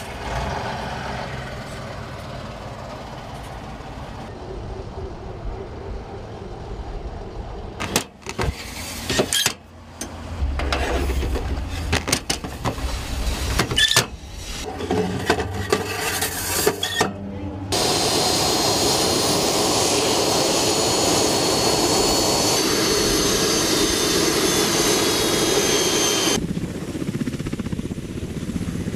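Ka-52 attack helicopters running on the ground, heard in several cut-together clips. Knocks and clatter come in the middle. A steady turbine whine with rotor noise starts a little past halfway, and a lower steady rumble follows near the end.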